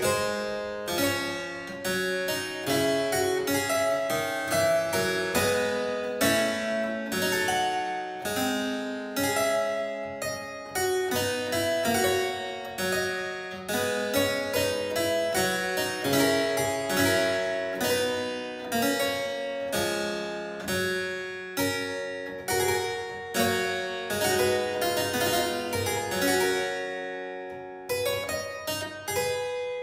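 Harpsichord music: a steady stream of plucked notes and chords, each starting sharply and dying away quickly. Near the end a chord rings out and fades before the playing starts again.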